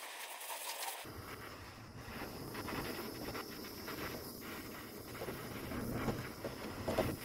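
Handheld propane torch burning with a steady hiss against a brass radiator tank, heating the seam so the solder will flow into a leak. The sound fills out about a second in and rises briefly near the end.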